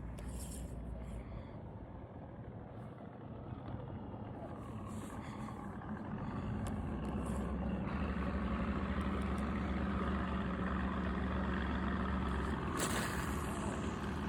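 A motorboat engine running steadily. It grows louder about six seconds in and then holds a steady hum. A sharp knock comes near the end.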